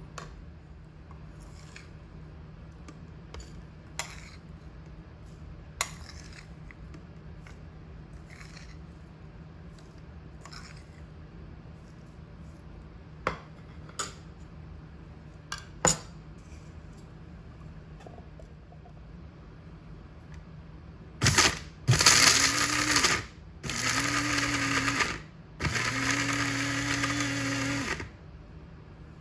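Scattered light clicks and knocks, then an electric mixer grinder running in several bursts of a few seconds each, its motor holding a steady pitch in each burst, with short pauses between.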